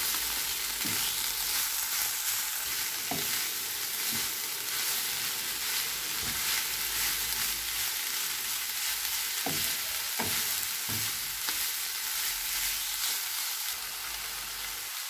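Minced meat and chopped onions sizzling steadily in a non-stick frying pan as they are stirred with a wooden spatula, which knocks against the pan now and then; the stirring stops near the end while the sizzle goes on.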